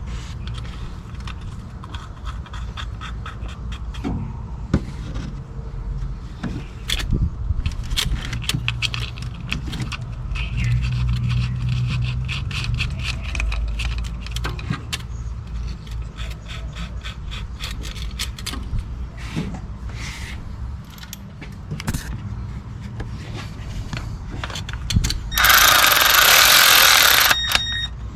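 Ratchet clicking in quick runs as the diverter valve's bolts are tightened, with a cordless ratchet motor running for a couple of seconds about ten seconds in. A loud burst of noise lasting about two seconds comes near the end.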